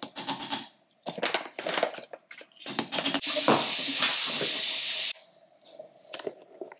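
Kitchen clatter of a blender jug and utensils being handled, then a blender running loud and steady for about two seconds, blending frozen banana for a smoothie, and cutting off abruptly.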